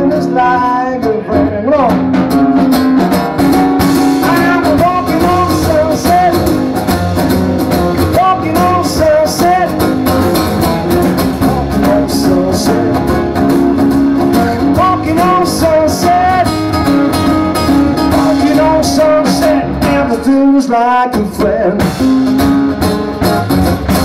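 Live acoustic band playing: two acoustic guitars strummed over an upright double bass and a drum kit, with a man singing. The bass and drums stop briefly near the end before the band comes back in.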